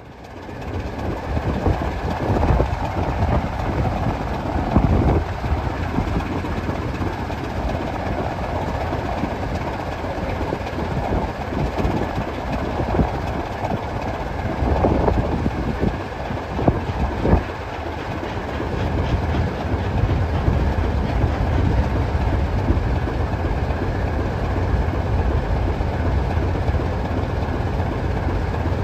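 Trains at a station platform: a steady low rumble, with a few sharp clanks about halfway through, as Caledonian Railway 828, an 1899 0-6-0 steam locomotive, runs slowly in toward the platform.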